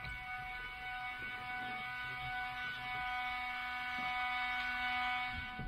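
Steady electric whine from the Geiger HPD20 motor and controller of an Aeros ANT electric trike, standing armed with the propeller still. It is made of several even, unchanging tones, with a lower hum joining about two seconds in, and it cuts off suddenly at the end.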